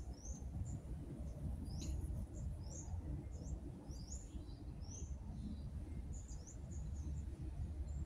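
Small birds chirping: short high chirps about twice a second, over a steady low rumble.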